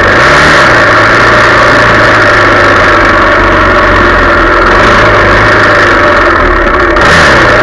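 Yamaha 400 dirt bike engine running loud and steady under way, with a short rise in revs just after the start and revving up and down again near the end.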